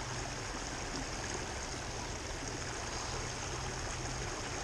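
Steady rush of flowing creek water, an even hiss with no distinct events.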